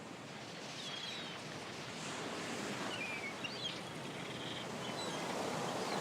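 Outdoor ambience: a steady rushing hiss that grows gradually louder, with scattered short, high bird calls.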